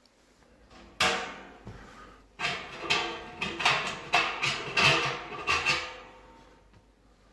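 Hard objects being handled: a sharp knock about a second in, then a quick run of knocks and scraping, fading out near the end.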